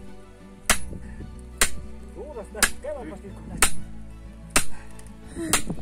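A hammer striking metal on the back of an axe lodged in a log, driving it in to split firewood: six sharp blows about a second apart. Steady background music runs underneath.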